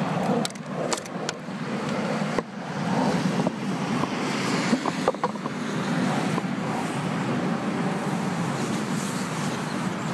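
Steady hum of road traffic, with a few sharp clicks and knocks in the first half from handling the car's wiper arms.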